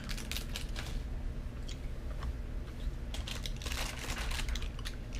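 Plastic candy wrappers crinkling and rustling as snack packets are handled, in several short spells with light clicks.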